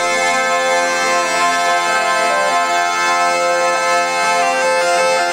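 Zampogne (southern Italian bagpipes) and a ciaramella shawm playing a tarantella, the melody moving over steady droning tones.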